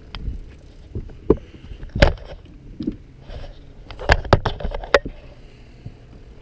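A handful of sharp knocks and clatters of gear being handled in a fishing boat as the landing net is fetched, with a loud bang about two seconds in and a cluster of knocks around four to five seconds.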